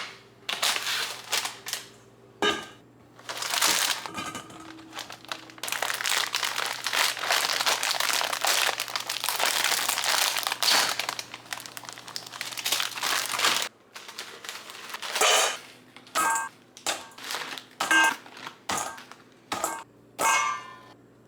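Plastic cookie packaging crinkling as it is opened and handled, with a long stretch of rustling in the middle. Near the end come short clicks and light knocks, as cookies are set into a bowl.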